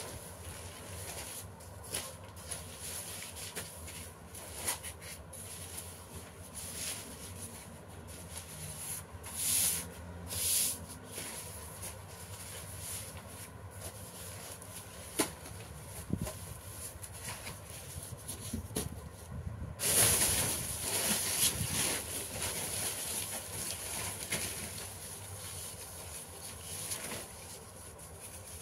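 Paper being folded by hand: soft, irregular rustling with a few light taps and two short swishes. The sliding and rubbing grows louder and denser about two-thirds of the way through.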